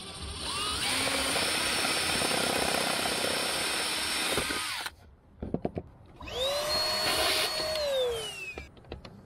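Power drill running for about five seconds, the motor's pitch rising at the start, then cutting off sharply. After a few clicks it runs again for about two seconds, its whine rising to speed, holding, and falling away as it is released.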